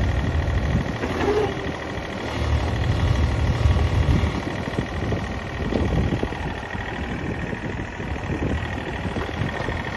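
Case excavator's diesel engine running, its low rumble swelling twice in the first four seconds and then settling, with a steady high whine over it.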